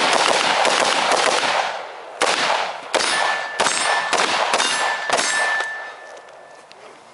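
AR-15 rifle shots striking steel targets, each hit giving a sharp metallic clang. A rapid string of shots opens, then about six more follow at roughly half-second intervals. A high ringing tone lingers from the struck steel.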